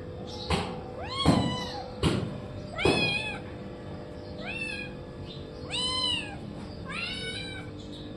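A cat meowing about five times, each meow short and high, rising then falling in pitch. Among the first meows come a few sharp knocks.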